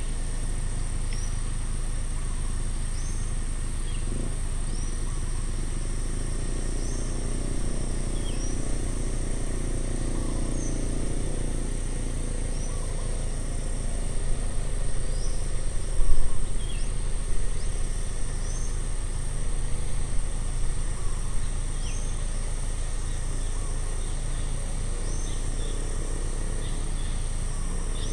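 Outdoor country ambience: a steady high insect drone, with a bird giving short chirps every second or two, over a steady low rumble. The sound swells and grows uneven in the middle for several seconds.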